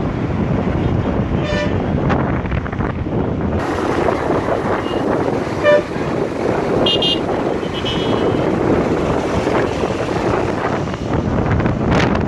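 Wind rushing over the microphone of a moving motorcycle amid road traffic, with several short vehicle horn toots, the loudest a little before halfway.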